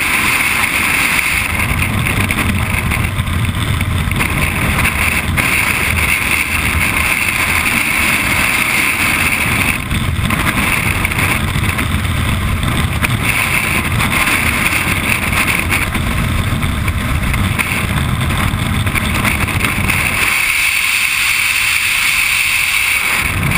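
Freefall wind rushing over a helmet-mounted camera's microphone: a loud, steady roar with a low rumble and a hiss that swells and fades as the body position changes. About twenty seconds in, the low rumble drops away and leaves mostly the hiss.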